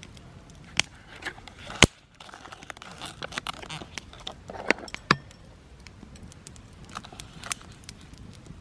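Irregular clicks and knocks with some scraping and rustling, as of gear or utensils being handled; the loudest sharp knock comes just before two seconds in.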